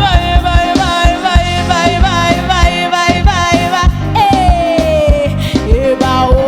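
Gospel praise music: a steady drum beat and bass under one long, wavering melody line, which slides down in pitch a little past four seconds in.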